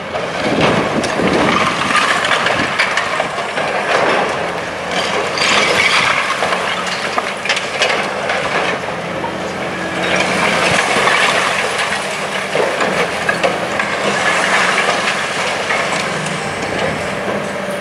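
Long-reach demolition excavator with hydraulic crusher jaws breaking into a concrete building: repeated cracking and crunching of concrete and debris falling, over the steady hum of the machine's diesel engine.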